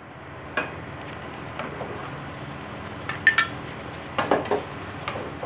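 A metal spoon scraping and knocking against a stainless-steel kadai while spinach saag is ladled out into a glass bowl, with scattered clinks; one clink, about three seconds in, rings out sharply.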